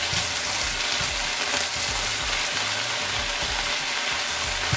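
Kale sizzling steadily in hot olive oil in a pan while the leaves are tossed and turned, with soft knocks of the stirring.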